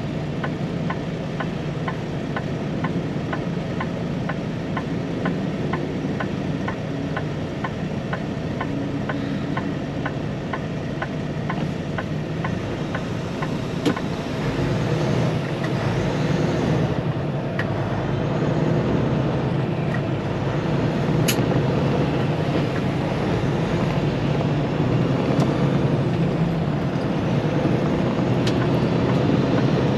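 Semi-truck diesel engine running, heard from inside the cab while driving, with the turn-signal relay clicking about twice a second through the first half. About halfway through the clicking stops and the engine gets louder.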